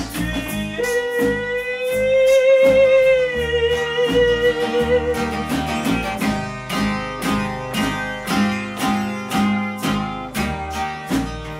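Live band playing an instrumental passage: a fingerpicked acoustic guitar over electric bass and drums. A long held note wavers above it from about a second in until about halfway through.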